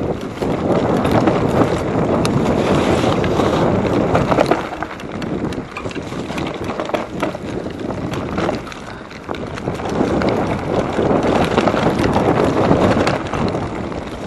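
Mountain bike riding fast down a rough trail: wind buffeting the microphone over tyre rumble, with scattered rattles and knocks from the bike. The noise eases off in the middle and picks up again about ten seconds in.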